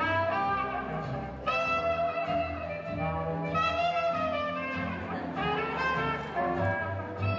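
Swing jazz music with brass horns playing sustained notes over a bass line.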